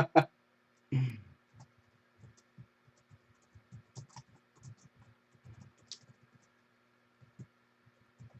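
Faint, irregular clicks and taps of typing on a computer keyboard, a few light strokes at a time, with a short vocal sound about a second in.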